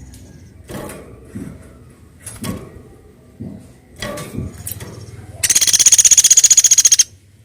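A woodpecker's loud, rapid rattling trill lasting about a second and a half, starting about five and a half seconds in. Before it come a few scattered knocks.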